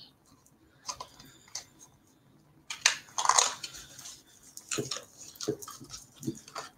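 A small cardboard cosmetics box and its wrapping being opened by hand: a few light clicks, then crinkling and rustling about three seconds in, with several soft knocks near the end as the blush compact comes out.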